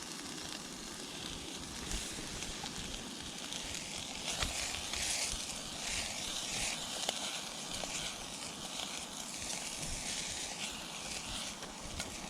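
Food sizzling and frying in a hot pan: a steady hiss with scattered crackles and the odd sharper pop.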